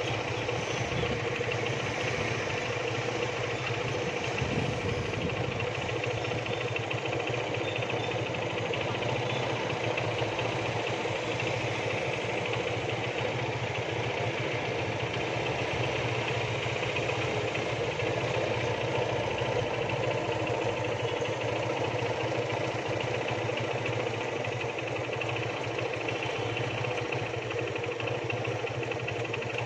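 A machine's engine running steadily at one speed, an even drone with no change in pitch or level.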